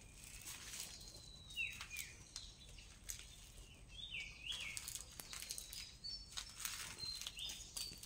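Small birds chirping now and then, short gliding chirps, over scattered faint clicks and crackles.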